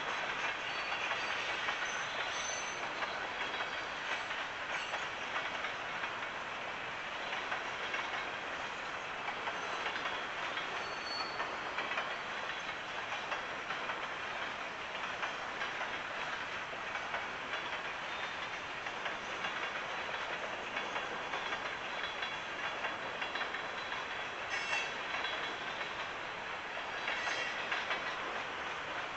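Freight cars rolling past on the rails: a steady rolling noise of steel wheels on track, with occasional brief high wheel squeals.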